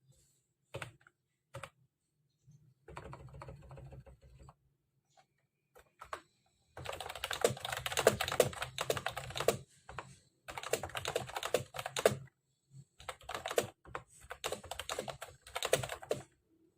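Typing on a Mofii Sweet S keyboard: a few single key clicks, then bursts of fast key clatter lasting a few seconds each, with short pauses between.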